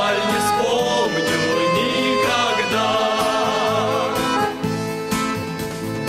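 Music from a church ensemble: accordion and other instruments playing sustained chords, with a wavering vibrato melody line about halfway through.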